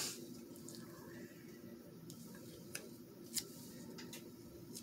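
Faint handling of paper scraps: soft rustling and a few light clicks as small pieces of paper are picked up and pressed down, over a low steady hum.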